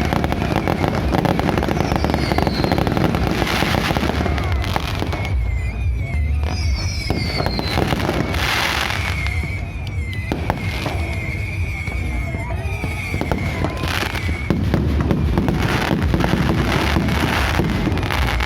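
Fireworks going off: sharp bangs and crackling bursts every few seconds, with falling whistles, over a constant low background din.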